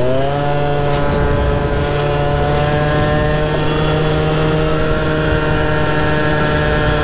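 Peugeot Jetforce scooter's two-stroke engine running at high, steady revs under way, the pitch rising in the first half-second and then holding level.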